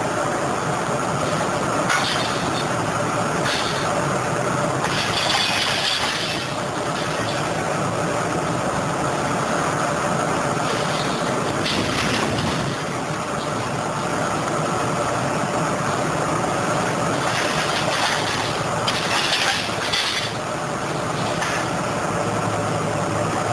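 Liebherr 904 wheeled material handler's diesel engine and hydraulics running steadily as its orange-peel grapple works scrap metal, with the scrap clanking and rattling several times.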